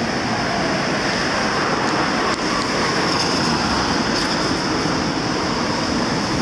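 City tram running past at a stop, a steady, even running noise.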